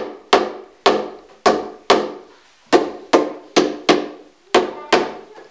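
A mallet knocking together the panels of a white flat-pack child's bed during assembly: about ten sharp strikes, roughly two a second, each ringing briefly.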